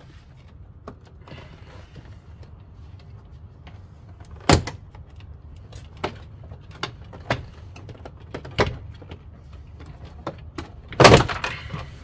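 Plastic door-panel clips snapping and clicking as a Tesla Model S interior door card is worked free of the door: a sharp snap about four seconds in, several lighter clicks over the next few seconds, and a loud cluster of cracks near the end.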